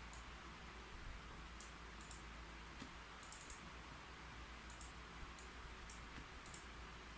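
Keyboard typing: sparse, irregular key clicks, sometimes several in quick succession, over a faint steady hiss.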